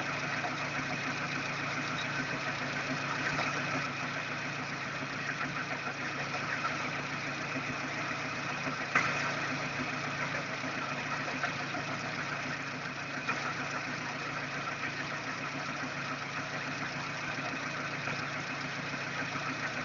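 Daewoo Espero 2.0-litre four-cylinder engine idling, running oddly with an extraneous knock. A few sharper knocks stand out, the loudest about nine seconds in.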